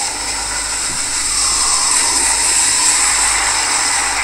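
Storm at sea: a loud, steady rush of wind and rough, breaking waves.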